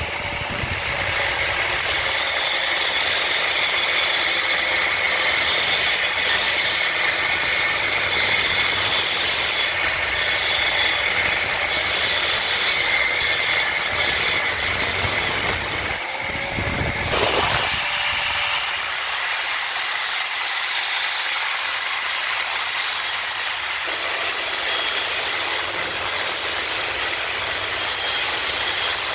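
Abrasive cut-off disc cutting stainless steel pipe: a loud, steady hiss of the disc in the metal with a faint whine under it. It eases off for a moment about sixteen seconds in, then cuts on.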